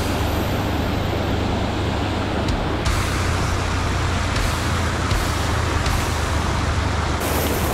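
Fast river rapids rushing and churning, a steady noisy rush with a strong low rumble.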